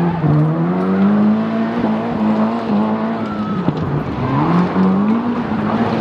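Rally car engine under hard acceleration. The pitch climbs, holds, drops back about three and a half seconds in, then climbs again.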